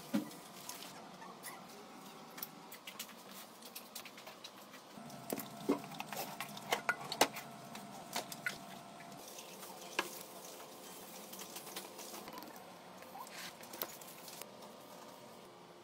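Scattered scrapes, taps and pattering of potting soil being dug out of a plant pot with a cup, tipped into a steel bowl and handled in crinkling aluminium foil; busiest from about five to eight seconds in.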